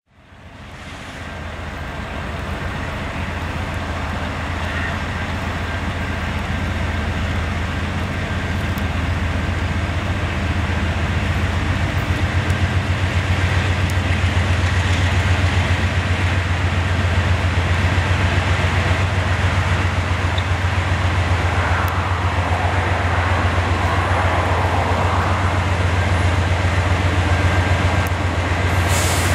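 Diesel locomotives of an approaching Norfolk Southern freight train running with a steady, pulsing low rumble. The rumble fades in at the start, grows louder over the first few seconds, then holds.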